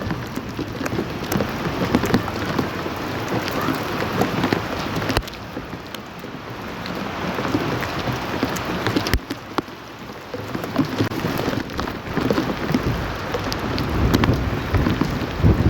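Steady heavy rain pattering on surfaces, a dense crackling hiss. A deeper low rumble builds near the end.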